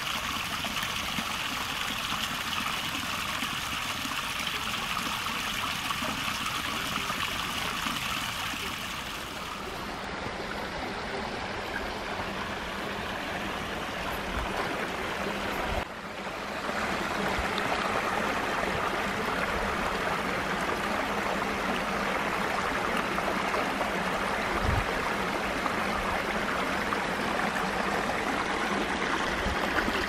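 Shallow stream water running and trickling over rocks in a stone-lined channel. The sound is a steady rush that shifts partway through and gets a little louder after about sixteen seconds.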